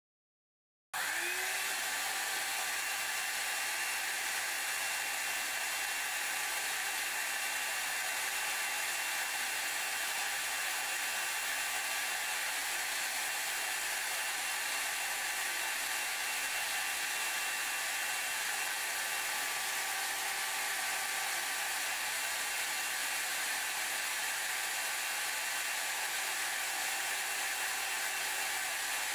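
Hair dryer switching on about a second in, its pitch rising briefly as the motor spins up, then blowing steadily.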